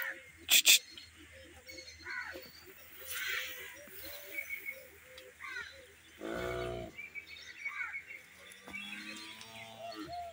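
Animal calls: a run of short high peeps and chirps, with a louder drawn-out cry about six seconds in. Two sharp clicks sound near the start.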